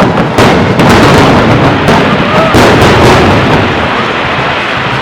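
Fireworks: a dense, continuous barrage of aerial shell bursts, with sharp reports following one another closely and no break between them.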